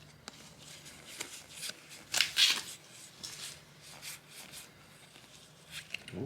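Trading cards being handled and flipped through: a run of short papery swishes and flicks of card stock sliding over card, the loudest just past two seconds in.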